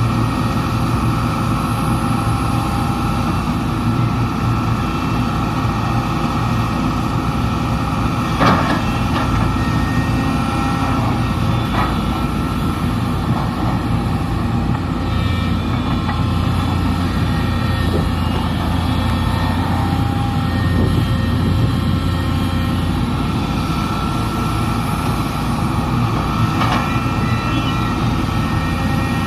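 SANY SY330H excavator's diesel engine running steadily at work, its low drone swelling for several seconds midway, with a few sharp knocks, the loudest about a third of the way in.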